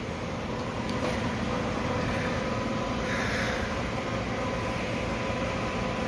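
Robot vacuum cleaner running: a steady whir with a thin, high, even whine, the hiss briefly stronger about three seconds in.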